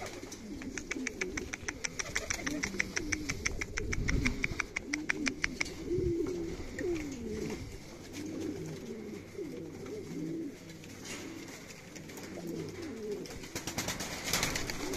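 Buchón Valenciano pouter pigeons cooing over and over in low coos that rise and fall, the call of males courting the hens. Over the first six seconds a quick run of light clicks, several a second, sounds with the cooing.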